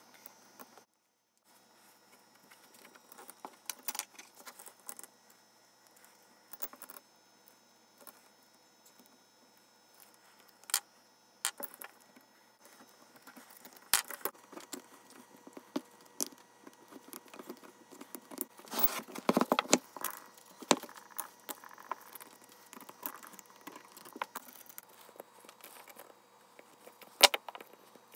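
Metal parts and tools being handled: scattered clinks, taps and knocks, with a denser stretch of scraping and rattling about two-thirds of the way through and a sharp click near the end.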